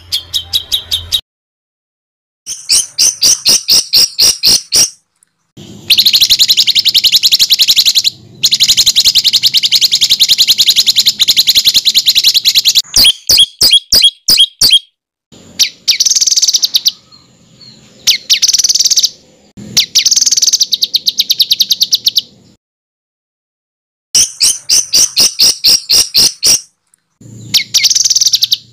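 Songbird song made of harsh, very rapid repeated-note trills ('tembakan kasar') between about 2 and 8 kHz, coming in long runs broken by a few sudden silent gaps. It is a masteran recording used to tutor competition songbirds.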